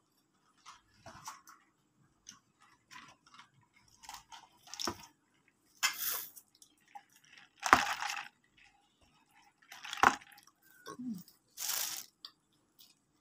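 Crispy fried chicken being pulled apart by hand and bitten, the batter crackling and crunching in scattered short bursts. Two sharper knocks, about eight and ten seconds in, are plates or food being handled.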